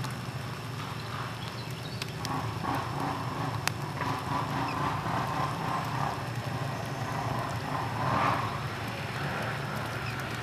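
Quad bike engines running at a distance: a steady low hum, with more engine noise from about two seconds in that swells briefly around eight seconds.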